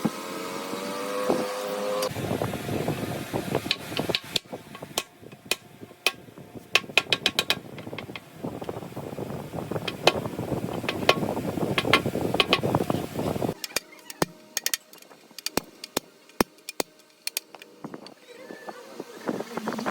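Many irregular sharp knocks, like tool strikes on metal, over a steady workshop noise. The noise drops about two-thirds of the way in, leaving scattered sharp knocks.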